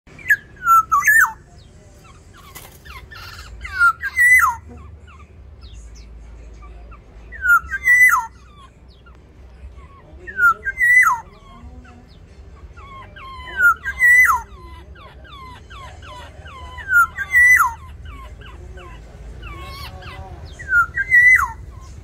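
Black-naped orioles calling in an aviary: a loud call that rises and then falls in pitch, repeated seven times about every three seconds, with fainter short notes between. These are the calls of two orioles contesting territory.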